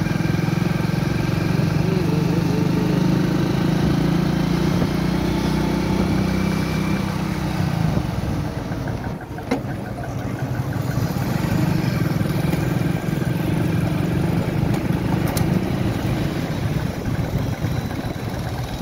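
Motorcycle engine running as it is ridden through street traffic, heard from the seat. The engine note eases about eight seconds in and picks up again a few seconds later, with a brief knock in between.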